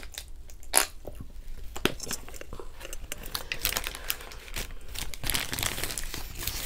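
Close-miked handling of a Burger King paper wrapper and crinkle-cut fries. There is a sharp click about a second in from the plastic ketchup bottle, then from about five seconds in a steady crackle of paper and fries being picked over.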